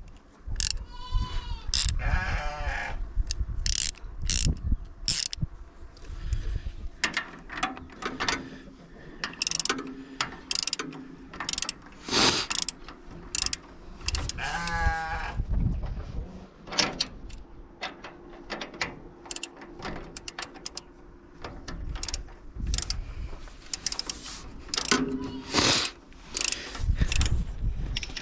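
Hand wrench tightening bolts on metal: repeated sharp clicks and clinks. A sheep bleats twice, once near the start and once about halfway through.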